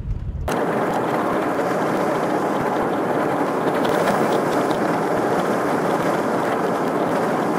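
Car driving on a paved road, its engine and road noise sped up with the fast-forwarded footage into a dense, steady rush. It cuts off suddenly near the end.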